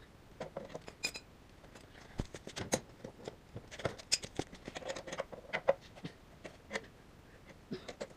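Irregular clicks and clinks of hand tools against the metal parts of a small engine being taken apart. About a second in, one knock rings briefly like struck metal.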